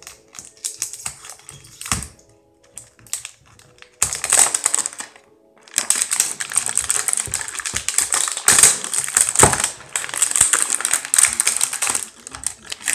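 Plastic packaging and small plastic paint bottles from a boxed craft-paint set being handled and unwrapped. Scattered clicks come first, then about four seconds in a dense crackling of plastic wrap sets in, with a short break soon after.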